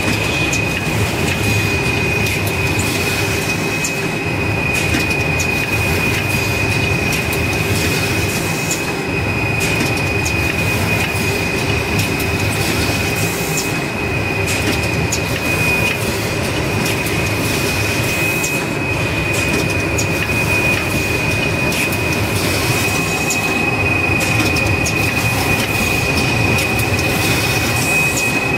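Servo-driven automatic toilet roll and kitchen towel packing machine running: a steady mechanical din with a continuous high whine and scattered light clicks.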